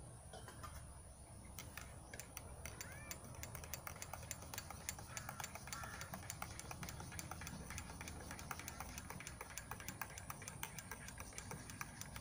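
Rapid, irregular light clicking and ticking, with a short bird call about three seconds in.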